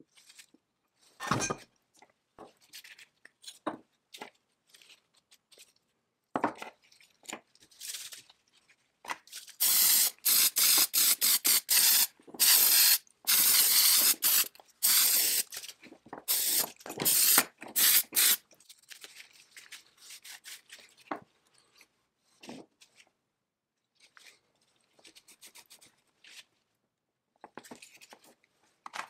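Hand work on metal chainsaw parts: scattered scraping, rubbing and small clicks, with a run of loud, choppy hissing bursts about a third of the way in that stop a little after halfway.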